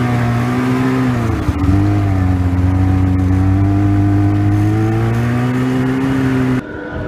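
Snowmobile engine running steadily under way. Its pitch dips a little over a second in, then slowly rises, and the sound cuts off abruptly near the end.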